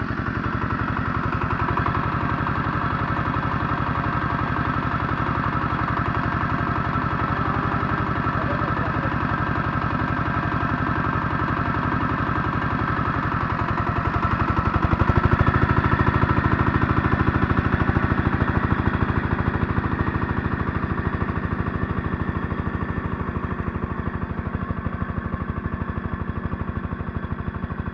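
Scout T-12 mini tractor's single-cylinder diesel engine running steadily under load while driving a rear rotary tiller through the soil; it gets louder about halfway through as the tractor passes close by.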